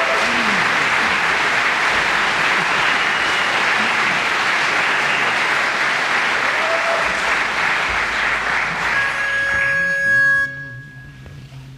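Theatre audience applauding after a barbershop quartet's song, the applause dying away about ten seconds in. As it fades, a brief held pitched note sounds, followed by faint low steady tones.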